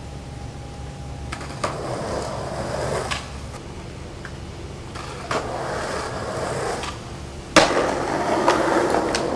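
Skateboard wheels rolling over concrete in stretches, broken by sharp clacks of the board. The loudest clack comes about seven and a half seconds in, and the rolling runs on after it.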